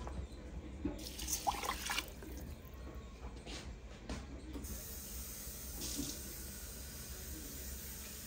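Water poured into a stainless steel pot of washed rice, splashing in its first few seconds, then only a steady low hiss.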